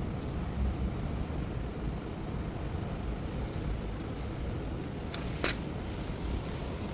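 Steady low rumble of a car's road noise, with two sharp clicks close together about five seconds in.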